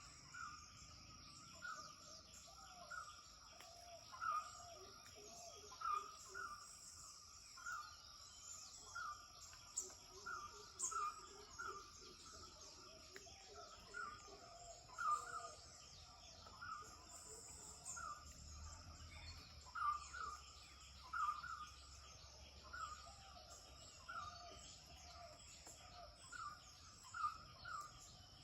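Several birds calling at dawn: one repeats a short note about once a second, others call lower and higher in between. A steady high-pitched tone runs beneath them.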